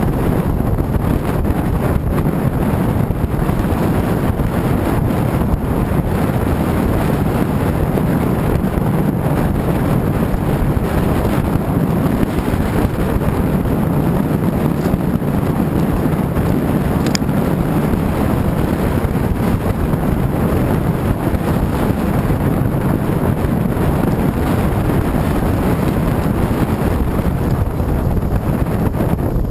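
Bass boat running at speed: a steady, loud rush of outboard engine noise mixed with wind buffeting the microphone, heaviest in the low end.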